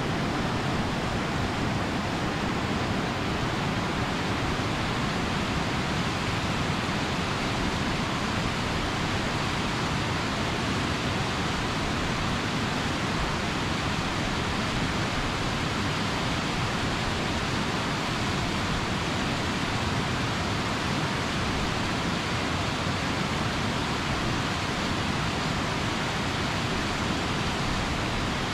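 Waterfall's rushing water: a steady, unbroken hiss of falling water.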